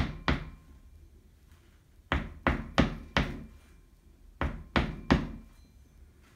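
Unfired clay slab bowl being tapped lightly against a work table, about nine dull knocks in three quick groups. The tapping flattens a small spot on the bowl's rounded bottom so it will sit stable.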